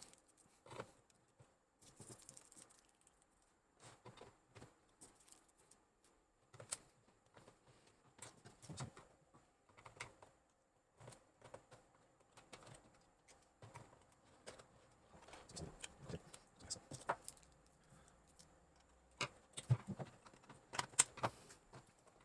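Scattered small plastic clicks and clacks as a flat-head screwdriver pries apart the snap-fit clips of a screwless Cherry keyboard case; the taps come more often and sharper in the last few seconds.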